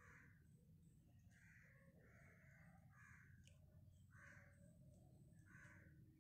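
Faint crow cawing, about six separate caws spread unevenly, over a quiet low background rumble.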